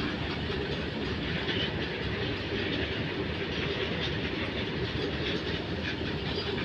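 Train wheels rolling on rails: a steady rumble of a moving train.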